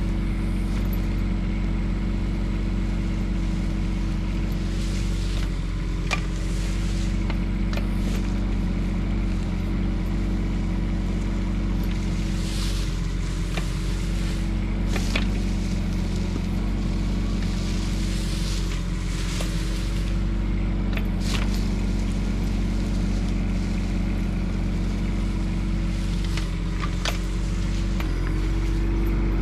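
Bobcat E10 mini excavator's diesel engine running steadily under digging load, with scattered knocks and scrapes as the bucket cuts into soil and roots.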